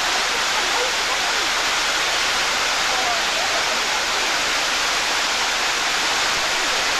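White water cascading down a rocky waterfall: a steady, unbroken rushing.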